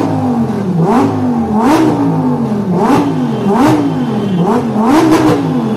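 A supercar engine being revved over and over while standing still, about once a second. Each rev climbs quickly and falls away more slowly, and most peaks carry a sharp crack.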